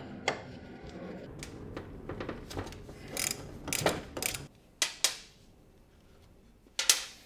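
Ratcheting combination wrench clicking as it undoes a brake caliper bolt, mixed with sharp metal clinks of the bolt and caliper parts on a steel bench. The clicks are irregular and stop about five seconds in, followed by a short quiet gap and one last clink near the end.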